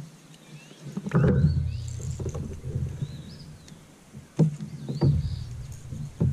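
A kayak being paddled, with water swishing and a few sharp knocks on the hull, the loudest about a second in and near the end. Birds chirp repeatedly in the background.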